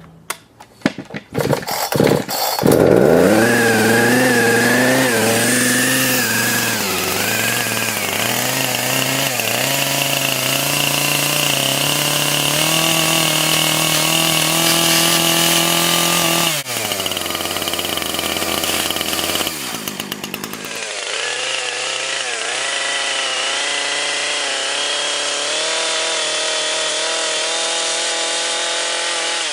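Chainsaw engine running, its revs rising and falling. It comes up to full speed about two and a half seconds in after a few short, uneven sounds, then keeps running with an abrupt break and change in tone about two-thirds of the way through.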